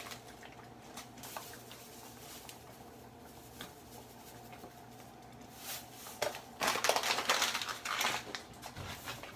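Paper sugar bag crinkling loudly for about two seconds in the second half as it is folded shut, over a faint steady hum.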